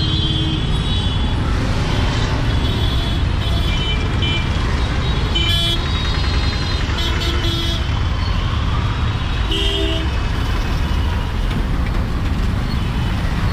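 Congested city street traffic: auto-rickshaw, scooter and car engines running steadily at low speed, with several short horn honks scattered throughout.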